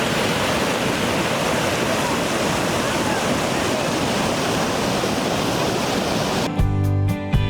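Steady rush of a waterfall's falling water. Near the end it cuts off suddenly and background music begins.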